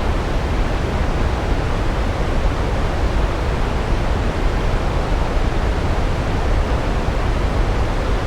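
Big waterfall heard from close: a steady, loud rumble of falling water, heaviest in the low end, with no change throughout.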